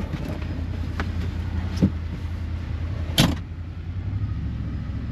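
Can-Am side-by-side utility vehicle running as it drives, a steady low engine hum, with two short knocks a little over a second apart in the middle.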